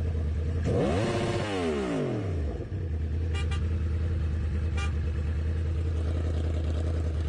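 A motor vehicle's engine runs steadily. About a second in it revs once, its pitch rising and then falling away, and two short high squeaks come a little later.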